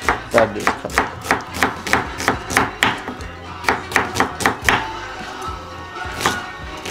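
Chef's knife slicing an onion on a wooden cutting board: a quick run of chops, about three to four a second, that thins out about five seconds in, with one more chop near the end. Music plays underneath.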